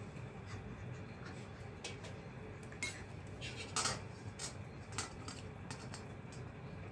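A metal spoon clinking against a large brass bowl: several separate sharp clinks and taps in the middle, the loudest about four seconds in.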